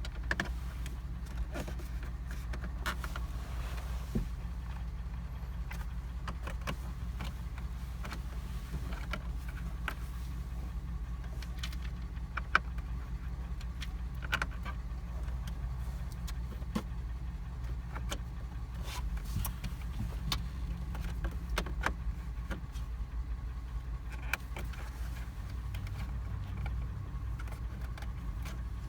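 Pickup truck engine idling with a steady low hum, with scattered clicks and knocks of handling in the cab, one louder knock about halfway through.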